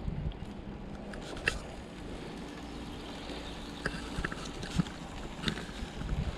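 Bicycle riding along: a steady low rumble of tyres and wind, with scattered sharp clicks and rattles from the bike.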